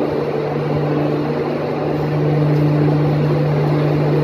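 Diesel engine of a standing train running steadily, a constant low hum over a broad rushing noise that grows a little louder about two seconds in.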